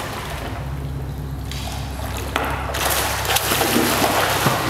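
A child swimming and kicking in a pool, splashing water; the splashing grows louder a little past halfway. A steady low hum runs underneath.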